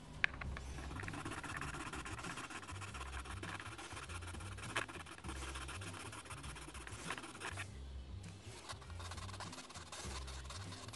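Scraping and rubbing against the base of a 1:64 die-cast toy car as its surface is prepared for gluing on small parts; a sharp click about a quarter second in, then continuous scratchy strokes that stop about seven and a half seconds in. Quiet background music underneath.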